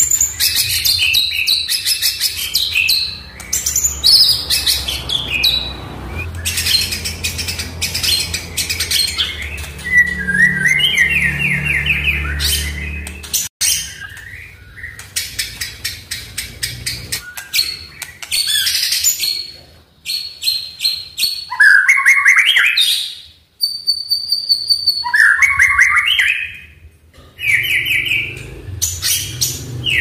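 White-rumped shama (murai batu) singing a long, varied song of clear whistled phrases, some rising and some falling, broken up by stretches of rapid clicking rattles, with short pauses between phrases.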